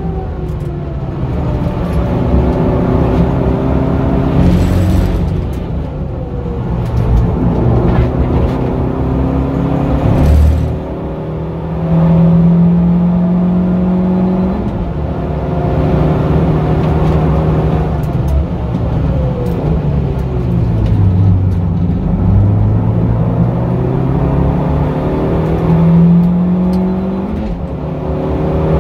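Suzuki Swift Sport ZC33S's 1.4-litre turbocharged four-cylinder engine being driven hard, revving up and down through the gears. There is a brief lift about ten seconds in and a falling-then-rising sweep past the twenty-second mark, like a downshift and re-acceleration.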